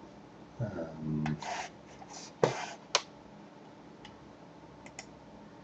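Computer mouse and keyboard clicks: a handful of scattered sharp clicks and taps, the loudest about two and a half seconds in, with fainter ticks later. A brief low hummed voice sound comes about a second in.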